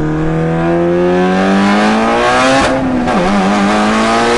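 Mitsubishi Lancer Evolution VIII's turbocharged 4G63 inline-four, loud as hell, heard from inside the cabin under hard acceleration. The engine note climbs steadily, breaks and drops in pitch about three seconds in at an upshift, then climbs again.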